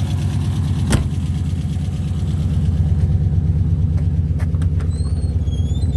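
Car engine idling steadily, with one sharp knock about a second in.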